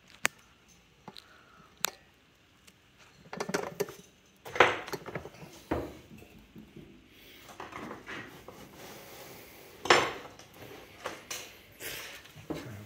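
Scattered clicks, knocks and clinks of hard objects being handled around a potter's wheel, with a few louder knocks among them.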